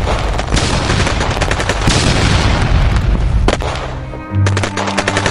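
Battle sound effects of rapid gunfire and explosions over background music; the shooting stops about four seconds in, leaving the music.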